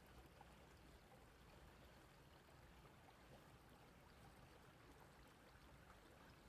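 Small stream trickling faintly and steadily.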